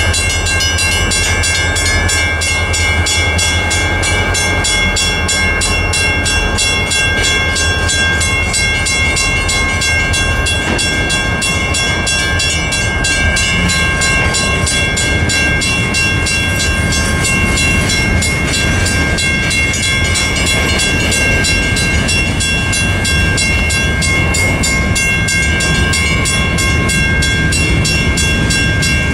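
Federal Signal mechanical crossing bells ringing in a fast, steady rhythm while a freight train of tank cars and covered hoppers rolls through the crossing, its wheels running over the rails underneath.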